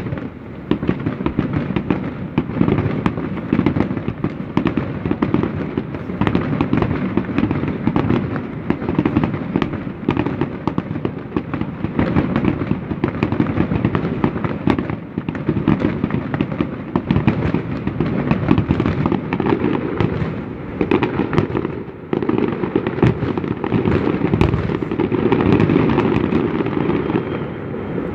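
Fireworks display going off in a dense, continuous barrage of bangs and crackles. It starts abruptly with a loud bang and keeps going without a break.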